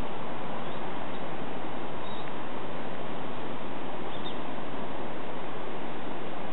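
A steady, even rushing hiss with a few faint, short, high bird chirps on top of it.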